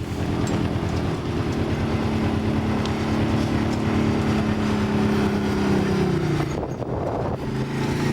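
A vehicle engine running steadily at low revs, its pitch dropping a little about six seconds in, with wind noise behind it.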